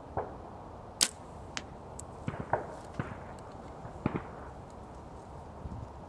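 Compound bow shot, a Hoyt: one sharp, loud crack of the string and limbs as the arrow is released about a second in, followed by a few lighter clicks and knocks.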